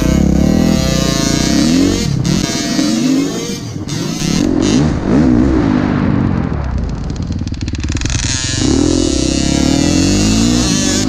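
Dirt bike engine, heard from the rider's helmet, revving up and down over and over as the throttle is opened and closed around the track.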